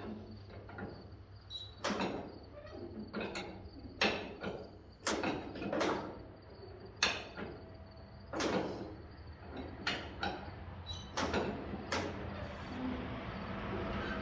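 Irregular metallic knocks and clanks, roughly one a second, as of metal parts being handled during work on the old Hart-Parr tractor engine. A low steady hum runs underneath.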